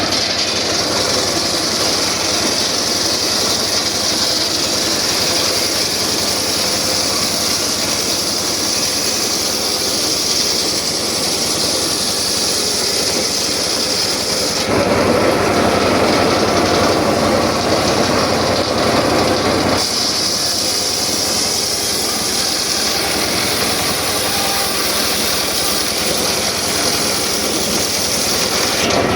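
Circular saw running and cutting through very hard wood, a steady loud machine sound with a high whine. About fifteen seconds in, the tone drops lower for a few seconds, then the high whine returns.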